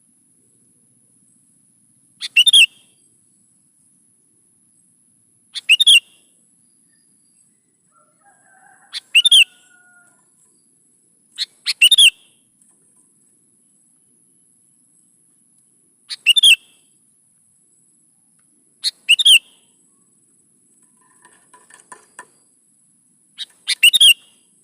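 Sooty-headed bulbul (kutilang) singing: seven short whistled phrases spaced a few seconds apart, each a quick run of falling notes, with a few much fainter chirps between them.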